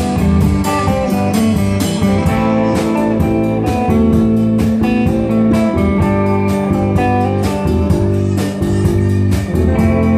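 Live rock band playing an instrumental stretch: electric guitars over a drum kit, with cymbal and drum hits keeping a steady beat.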